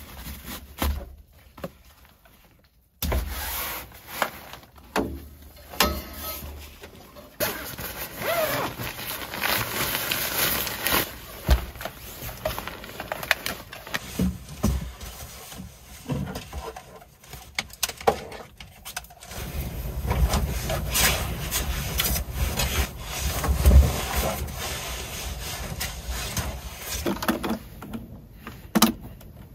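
Camping gear being handled in a pickup truck bed: fabric and bedding rustling, with scattered knocks and clicks of things being moved and set down.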